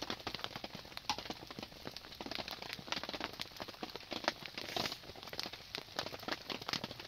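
Rain pattering and dripping on a surface: a dense, irregular run of small taps.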